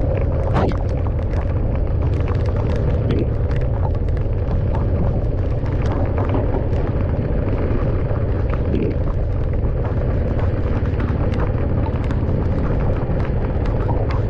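A car driving in the rain: a steady, heavy low rumble of road and engine noise, with many small sharp ticks of raindrops hitting the car throughout.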